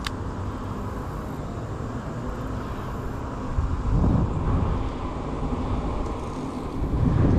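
Low rumbling wind noise on the microphone, swelling louder in gusts about four seconds in and again near the end.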